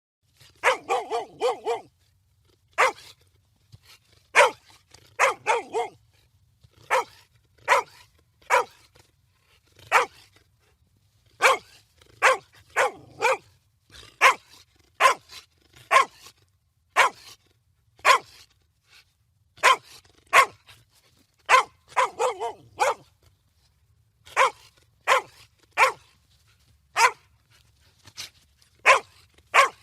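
A dog barking repeatedly, mostly single short barks about a second apart, broken by quick runs of three or four barks.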